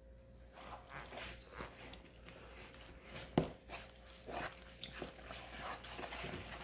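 Flour, oil and water being stirred into sticky bannock dough in a bowl: faint, irregular stirring and scraping noises, with one sharper knock about three and a half seconds in.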